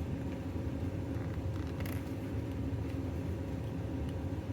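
Steady low background hum, with a single faint click about two seconds in.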